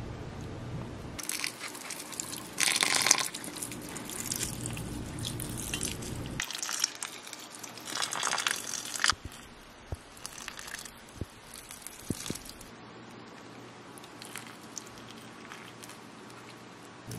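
Water poured from a long-spouted watering can onto the potting soil of houseplants, in several separate pours a second or two long; the strongest come about three seconds in and about eight to nine seconds in. A few light clicks near the middle.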